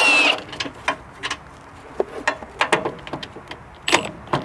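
Impact wrench with a 17 mm socket on an extension, removing a transmission mount bolt; its run stops abruptly a fraction of a second in. Scattered light metallic clicks and knocks follow as the tool and socket are handled.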